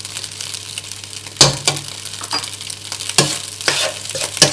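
Fried rice sizzling in a wok as it is stirred with a metal spatula, with several sharp scrapes and knocks of the spatula against the pan, the first about a second and a half in.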